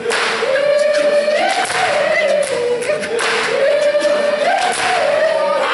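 A group of voices singing a Zulu song together without instruments, the melody moving in short phrases that step up and down, with a few sharp short hits among the singing.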